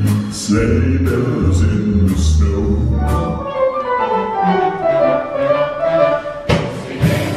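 Christmas stage music with singing: low sustained bass notes and beats, then a melody line on top, with a sharp hit about six and a half seconds in.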